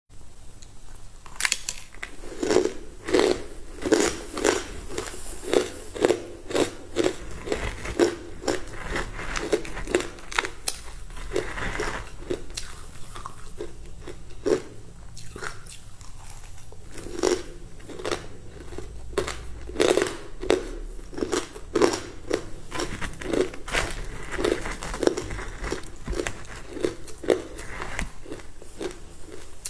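Close-miked crunching and chewing of a crumbly green food eaten by the spoonful: a regular run of sharp crunches, roughly two a second, thinning out for a few seconds in the middle.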